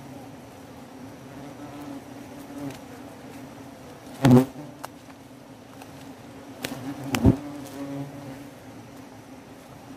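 Wasps buzzing in a steady drone around a nest being dug out. Two sharp knocks cut in, about four seconds in and again three seconds later.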